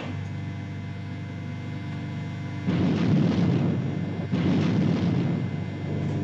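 Steady low machinery hum of a submarine torpedo room, joined about two and a half seconds in by two long rumbling, rushing noises, each about a second and a half, as a torpedo is rammed along its loading rack into the torpedo tube.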